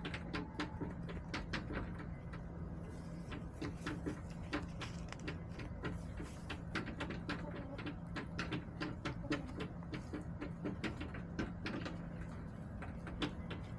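Chickens moving about a plastic coop, pecking and scratching: irregular light clicks and taps, several a second, over a steady low hum.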